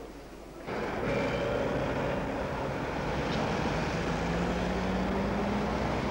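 Street traffic noise with a car engine running, starting abruptly about a second in; the engine's pitch rises slowly in the second half.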